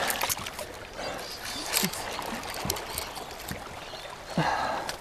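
River water running past branches, with twigs and leaves crackling and rustling and light splashes as a person pushes through waterside scrub by hand.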